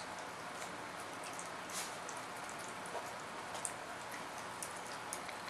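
Steady background hiss with scattered faint clicks and ticks, a few sharper ones about two seconds in and near the middle.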